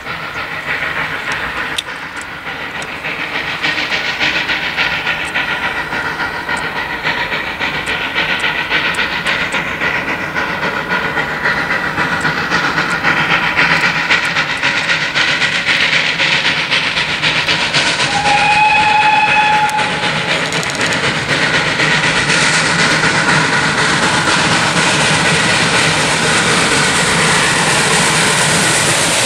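Steam locomotive hauling a passenger train, approaching and running past, growing louder. One whistle blast of about a second and a half sounds about two-thirds of the way through.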